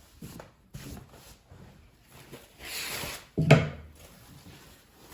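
A wooden kitchen drawer front being handled: a sliding rub about two and a half seconds in, then a single sharp wooden knock as it is set down.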